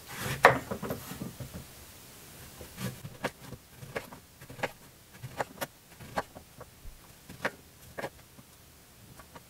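Kitchen knife cutting the peel off an orange on a wooden cutting board: irregular short taps and clicks as the blade slices through the peel and meets the board.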